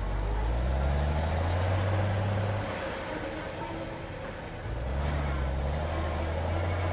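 Fire truck engine running and rising in pitch as it accelerates. It eases off a little under three seconds in, then picks up and rises again near the middle.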